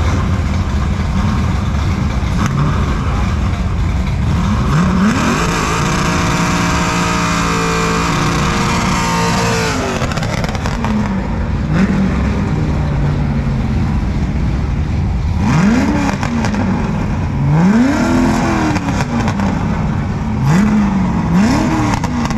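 Drag-race car engines running loud, with repeated quick throttle blips. About five seconds in, one rev is held high for several seconds and then drops back.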